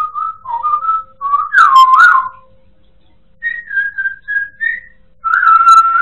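African grey parrot whistling in short phrases of clear notes and pitch glides, with a loud swooping whistle about two seconds in and a loud held note near the end.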